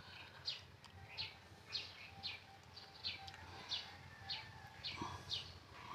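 A small bird chirping over and over, faint, short high chirps that slide downward, about two a second.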